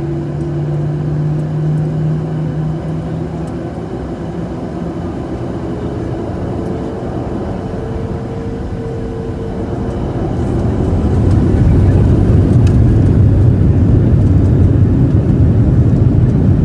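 Boeing 737-800's CFM56-7B27A turbofan engines heard inside the cabin over the wing: a steady hum with a few held tones that creep up in pitch, then about ten seconds in the engines spool up and the sound swells into a much louder, deep rumble as thrust is set for the takeoff roll.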